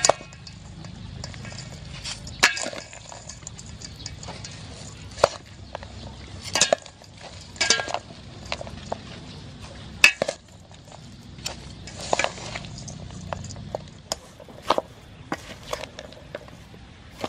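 Salad being tossed by hand and with a wooden spoon in a stainless steel mixing bowl: a soft, moist rustle of shredded green mango and sliced sea snails, with irregular sharp clinks and knocks against the metal bowl.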